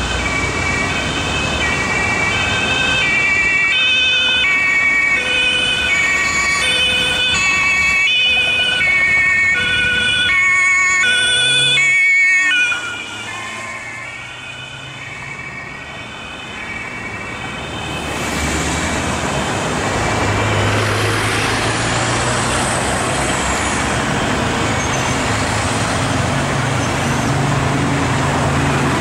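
Two-tone German police siren (Martinshorn) on a VW Touran patrol car, switching steadily between its two pitches, then cutting off abruptly about twelve seconds in. Later the car accelerates hard, its engine and tyre noise rising, with tyres squealing as it takes a corner.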